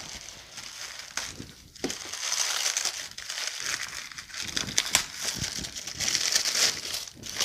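Brown packing paper being crumpled and pulled open by hand: a continuous crinkling with sharper crackles now and then.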